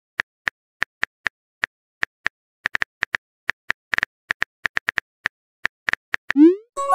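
Texting-app typing sound effects: a run of quick, sharp keyboard-tap clicks at an uneven pace, several a second, as a message is typed. Near the end comes a quick rising swoop, then a steady chime-like tone as the message sends.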